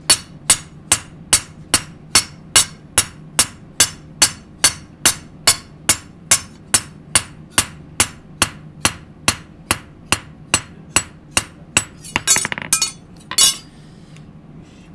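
Hand hammer striking a steel knife blade on an anvil in an even rhythm, a little over two sharp, ringing blows a second. This is cold hammering (nama-tataki) to compact and tighten the steel. About twelve seconds in, the blows stop and there is a brief clatter of metal tools.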